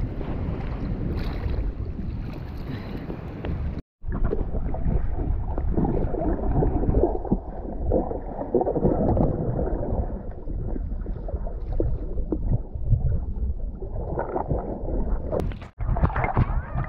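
Sea water sloshing and splashing around an action camera at the surface. After a brief dropout about four seconds in, the sound turns muffled: bubbling and swimming strokes heard underwater. It brightens again near the end as the camera comes back to the surface.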